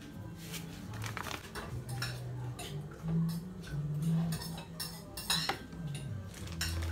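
Kitchen utensils clinking and scraping: metal cutlery knocking against ceramic dishes and a metal pot in a string of irregular sharp clicks, over a low hum.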